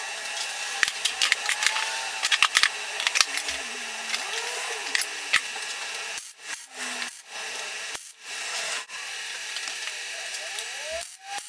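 Wire-feed welder tack-welding the corner of a steel square-tube frame: a crackling hiss, with sharp pops in the first few seconds, that stops and restarts several times in the second half.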